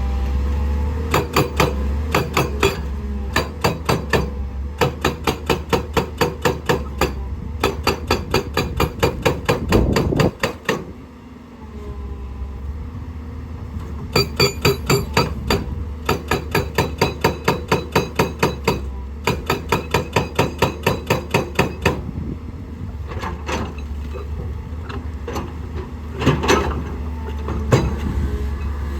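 Excavator-mounted hydraulic rock breaker hammering on rock in rapid runs of blows, several a second, that stop and start again, over the steady hum of the excavator's diesel engine. There is a short lull about ten seconds in and scattered blows near the end.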